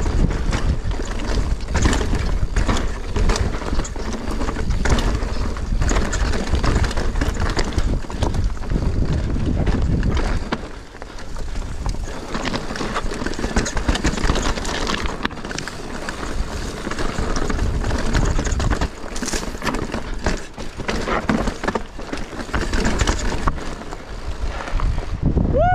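Mountain bike riding down a rocky singletrack: wind buffeting the microphone, with the tyres crunching over stones and the bike rattling and clattering over bumps. The wind rumble eases about ten seconds in, and a short falling tone sounds right at the end.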